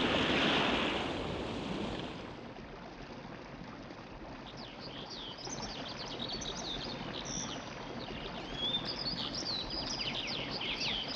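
A soft rushing noise fades out over the first two seconds. Birds then chirp with many quick, high, varied calls and short pitch glides.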